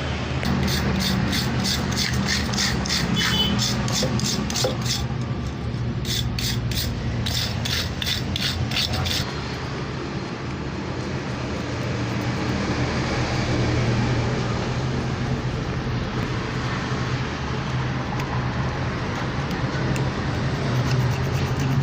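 Brisk hand-scrubbing strokes on a dirt-caked, seized motorcycle disc brake caliper, about three a second, with a short pause about five seconds in and stopping about nine seconds in, over a steady low hum.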